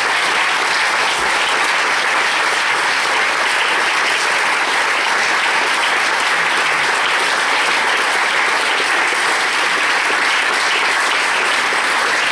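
An audience applauding: dense, steady clapping that keeps up without a break.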